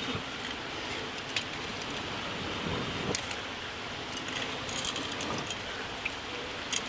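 Oil heating in a cast-iron skillet over a charcoal fire, giving a few scattered sharp pops and crackles as it nears frying temperature, over the steady rush of a stream.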